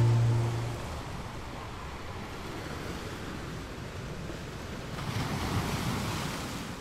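Ocean waves breaking, a steady surf noise with one wave swelling up about five seconds in and washing away. A held chord of music dies out in the first second.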